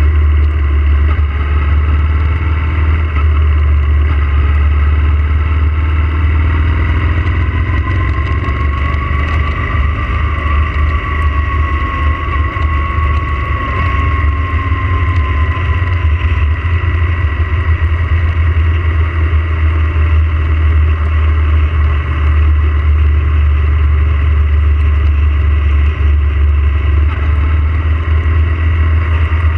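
Yamaha motorcycle riding at steady road speed on a wet road, its engine running under heavy wind rumble on the tank-mounted microphone. A faint whine rises slightly and falls back about a third of the way in.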